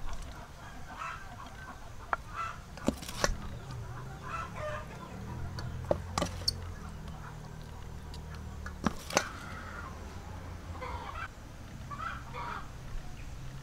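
Chickens clucking faintly in short calls, with a few sharp clicks and taps in between.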